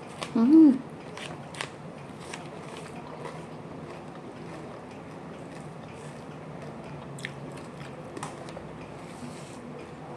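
A person chewing a mouthful of rice with crispy fried potato and salted fish, with scattered crunches and sharp mouth clicks. About half a second in there is a short hummed 'mm', rising then falling in pitch, which is the loudest sound.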